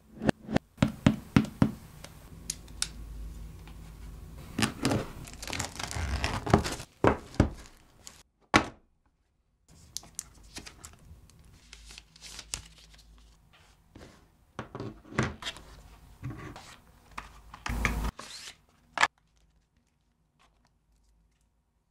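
Hands handling a smartphone's cardboard retail box and its contents: a quick run of taps and knocks on the box, a longer stretch of sliding and rubbing as it is opened, then scattered clicks, thunks and crinkles of packaging and a plastic case being handled.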